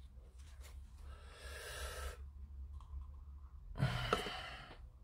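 A man breathing out heavily twice, the second a louder sigh about four seconds in, over a low steady hum.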